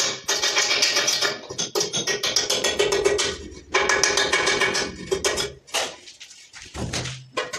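Music with percussion.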